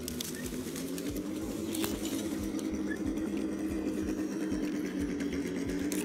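Axial SCX10 RC rock crawler's electric motor and geared drivetrain whining steadily at crawling speed, with a few faint clicks as the tyres work over the rock.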